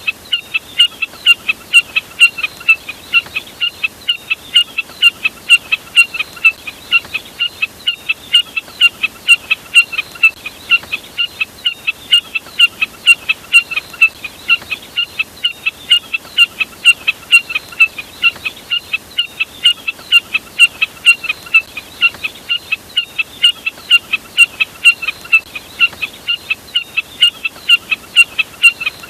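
Jack snipe calling: a short, sharp note repeated steadily about three times a second.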